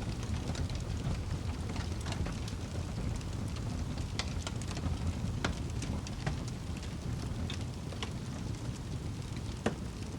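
Wood fire burning in a fireplace: a steady low rumble of flames with scattered crackles and pops, one sharper snap near the end.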